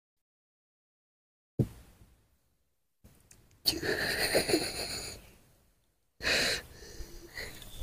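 A single click, then a baby monkey gives a high cry lasting over a second, followed by a shorter one about two seconds later.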